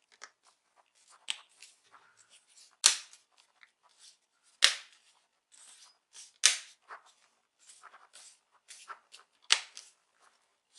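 Plastic clips of a laptop's front display bezel snapping into place as it is pressed on around the screen: a run of sharp clicks, four or five loud snaps a second or two apart with smaller clicks between.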